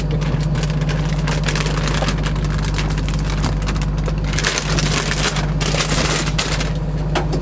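Crinkling of a plastic snack wrapper or bag being handled, a dense crackle that is heaviest in the second half, over a steady low hum.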